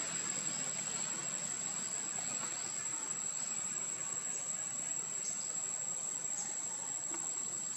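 Insects calling with one steady, high-pitched tone over a constant background hiss, with a few faint short high chirps in the middle.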